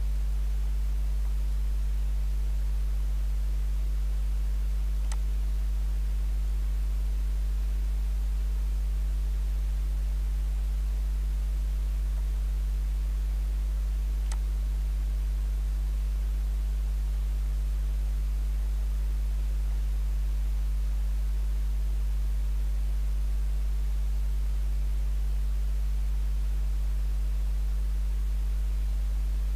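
Steady low electrical hum, a few fixed low tones that do not change, with two faint clicks about five and fourteen seconds in.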